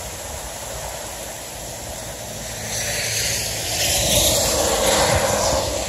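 Heavy rain pouring steadily in a thunderstorm. About halfway through, a louder rushing hiss swells up and then drops away near the end.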